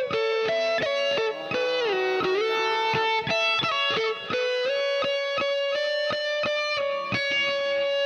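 Background music led by an electric guitar melody, with notes bent up and down about two seconds in.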